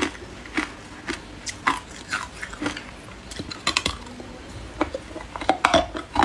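A person biting and crunching hard ice close to the microphone: sharp, irregular cracks and crunches as chunks break between the teeth, coming thicker near the end.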